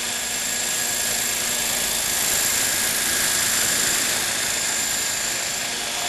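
Radio-controlled model helicopter flying, its motor and rotors making a steady high whine that swells a little in the middle.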